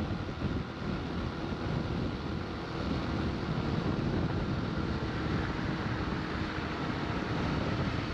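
Motorcycle riding at steady road speed: engine running under an even rush of wind and road noise.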